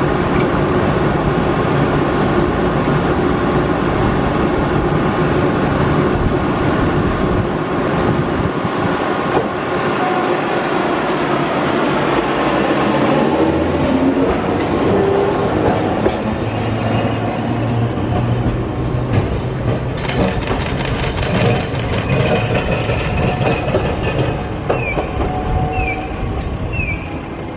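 Mo3200 streetcar running along street track. Its motor whine rises as it accelerates about halfway through, over wheel noise and clacking on the rails. Short repeated chirps sound near the end.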